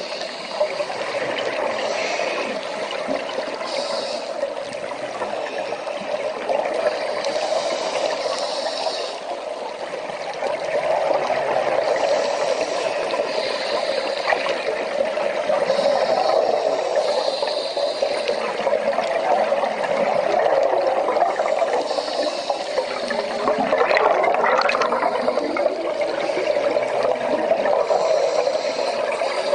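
Underwater sound picked up by a diver's camera: a steady watery rush, with short higher hisses coming and going every second or two.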